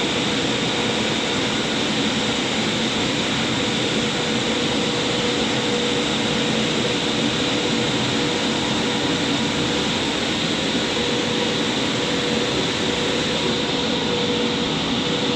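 Christ Varius gantry car wash's drying blowers running: a steady, loud rush of air with a constant hum.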